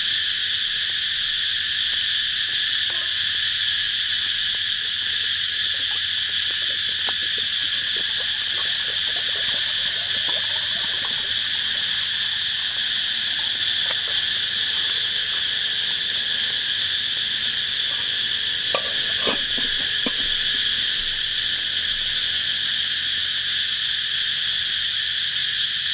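A dense chorus of insects gives a steady, high-pitched drone throughout. Under it come a few faint knocks and clinks as a metal pot and firewood are handled at a campfire.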